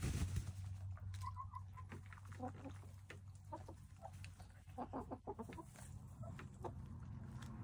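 A small flock of domestic hens clucking in short, soft notes, scattered irregularly as they mill around together.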